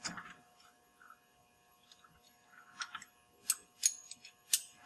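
Light metallic clicks and ticks as a truck track system's chain tensioner is handled and its locking pin is put back in, with the steel chain clinking. Mostly quiet at first, then about half a dozen sharp clicks in the second half.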